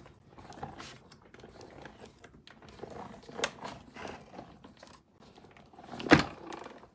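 Hand-cranked Stampin' Cut & Emboss machine being rolled through with a thick plate sandwich that holds an embossing folder and doubled cardstock. It creaks and clicks irregularly as it is forced through under hard pressure, with one louder knock about six seconds in.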